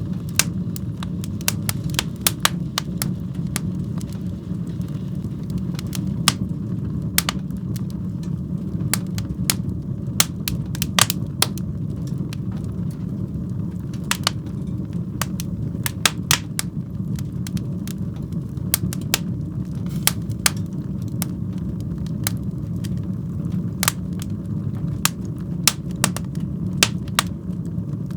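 Fire burning in a fireplace: a steady low rumble of flames with frequent sharp, irregular pops and crackles.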